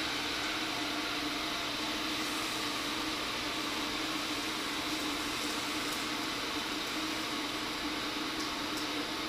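Steady hiss with a faint low hum: an electric kettle heating water toward the boil. A couple of faint ticks come near the end.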